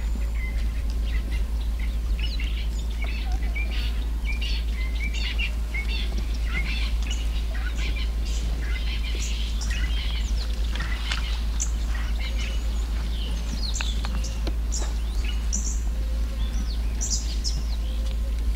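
Many birds chirping and calling, short high calls overlapping all through, over a steady low rumble.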